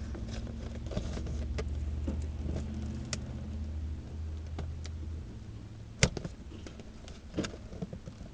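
Low steady hum inside a parked car, dropping off about five seconds in, with scattered clicks and taps of a cardboard toy box being handled as sticker grip pieces are peeled off it; a single sharp click about six seconds in is the loudest.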